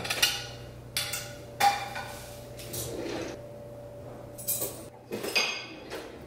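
Metal serving utensil clinking against a pan and plate as pasta is dished up: about five sharp clinks with a little scraping between them.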